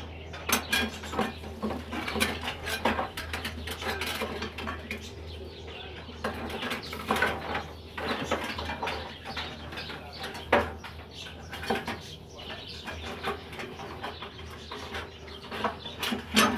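Irregular clinks and knocks of dishes and metal utensils being handled, over a low steady hum.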